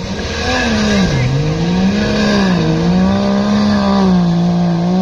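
Drift car engine held at high revs, its pitch dipping sharply about a second in and again a little after two and a half seconds, then climbing back and holding.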